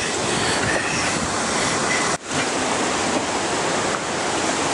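River water rushing over rocks, a steady hiss of flowing current. It cuts out for an instant about two seconds in.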